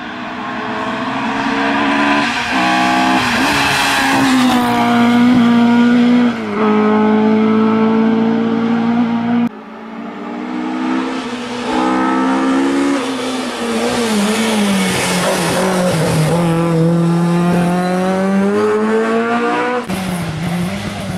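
Ford Escort RS Mk2 rally car engines revving hard through the gears, the pitch climbing and then dropping at each shift. About halfway through it cuts abruptly to a second car doing the same, and near the end to a third.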